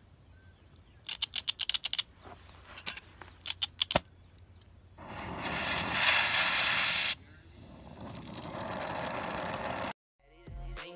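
Brazing torch being fitted and tried: a quick run of small metallic clicks and rattles as the tip is handled, then gas hissing from the torch in two spells. The first spell is louder and cuts off suddenly.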